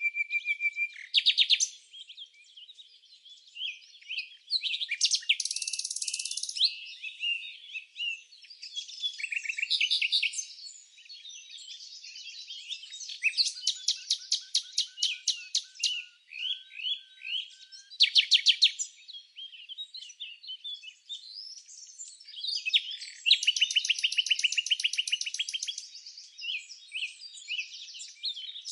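Songbirds singing: a continuous run of high chirps and fast trills of rapidly repeated notes, one phrase after another.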